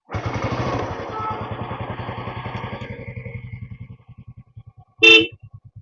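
Royal Enfield Bullet 500's single-cylinder four-stroke engine running with the throttle open, then dropping back around three seconds in to a slow, even idle thump. A short horn beep sounds about five seconds in.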